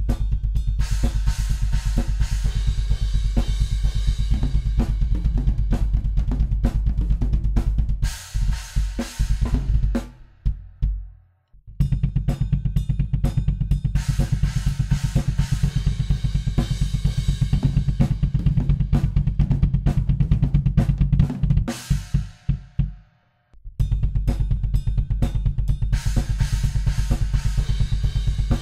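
A drum kit played with rapid, dense kick drum beats and cymbals over the top, recorded through kick drum microphones so that the bass drum's low thud dominates. Three takes follow one another, each ending in a brief break about 10 and 23 seconds in.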